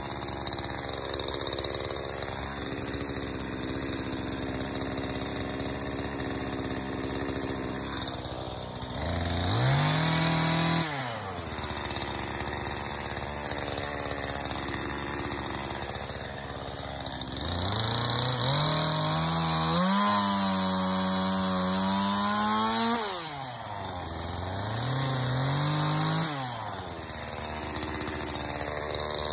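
Gas chainsaw idling, then revved up three times, with the pitch climbing and holding at high speed before dropping back. The longest run, of about five seconds, comes in the second half.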